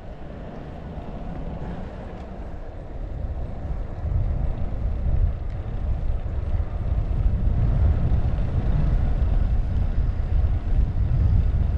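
Wind rumbling on the microphone, with tyre noise from a Trek Domane 5 Gen 3 road bike rolling on asphalt. The rumble gets louder about four seconds in.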